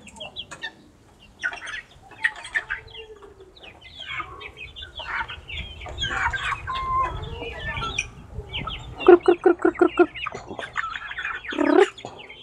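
A flock of kampung super chickens clucking and calling while they feed, with many short overlapping calls. About nine seconds in comes a quick run of about six clucks, the loudest sound.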